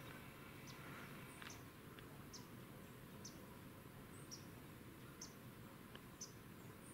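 Near-silent woods with a small bird giving short, high chip notes about once a second, each dropping slightly in pitch, over a faint hiss.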